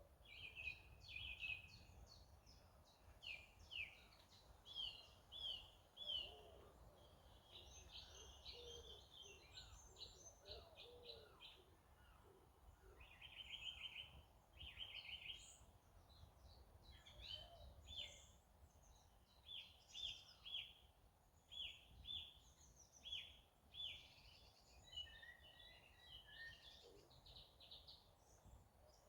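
Small songbirds singing and calling, faint: bursts of short high notes and quick trills, one after another, over a low background rumble.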